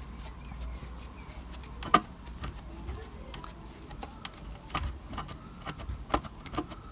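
Soft, scattered taps and clicks of a small sponge dabbing paint onto a model house's embossed brick wall and of the model being handled, with one sharper click about two seconds in, over a faint low hum.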